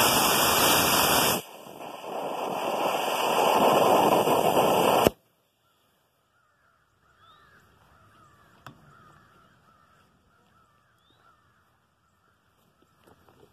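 Estes E12-4 model rocket motor static firing in a vise. The full-thrust rushing noise drops off about one and a half seconds in as the thrust phase ends. The noise then builds again through the roughly four-second delay phase and ends in a sharp pop about five seconds in, as the ejection charge fires. Faint bird calls follow.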